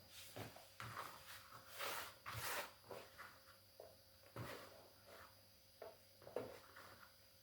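Faint, scattered light knocks and clicks with a couple of brief rustling scrapes about two seconds in: handling noises of hands-on cooking work.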